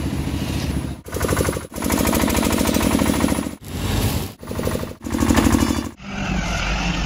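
Rapid, even mechanical rattling in short clips that cut off sharply every second or so. In the last second it gives way to a low steady rumble.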